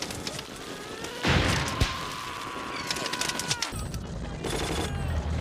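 Battle sound from a World War II TV drama: gunfire with a heavy blast about a second in, then a low rumble from past the middle.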